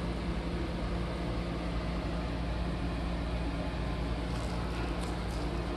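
A steady low mechanical hum with an even hiss, and a few faint light clicks in the second half.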